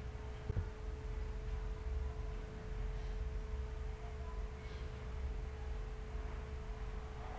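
Steady background hum: a single held tone with a low rumble and faint noise beneath it, and a soft knock about half a second in.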